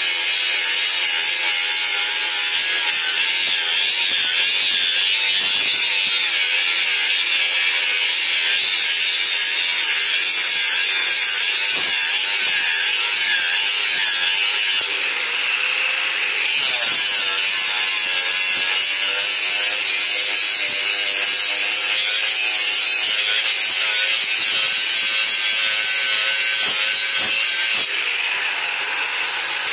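Electric angle grinder running with its disc pressed against a steel knife blade: a steady, loud, high-pitched grinding of metal. It eases for a moment about halfway and again near the end, as the disc comes off the blade.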